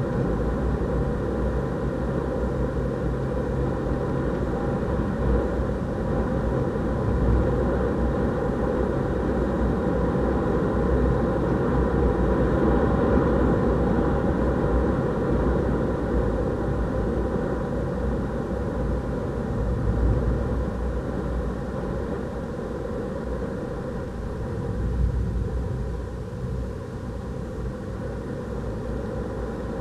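Renault Clio RS 200's turbocharged 1.6-litre four-cylinder engine pulling at speed, heard from inside the cabin under a heavy, steady rumble of tyres on the track surface and wind.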